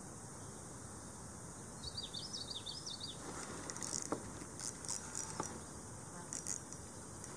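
Steady high insect buzzing over quiet open-air background, with a short warbling bird call about two seconds in. From about three seconds on come irregular clicks and rustles of fishing rod and gear being handled as the rod is raised.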